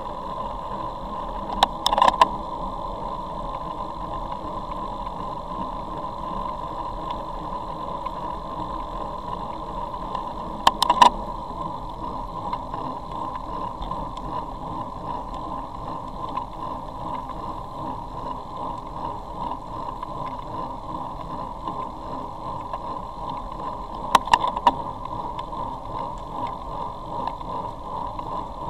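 Steady wind and road rumble picked up by a camera mounted on a road bike while riding. It is broken three times by brief clusters of sharp knocks: about two seconds in, around eleven seconds, and about three-quarters of the way through.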